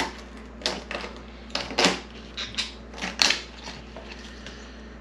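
Sharp cracks and clicks as a cooked escargot shell is broken open, about seven in the first three and a half seconds.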